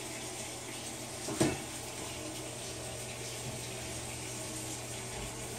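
Steady hissing background noise, with one short knock about one and a half seconds in from the metal hand plastisol injector being handled.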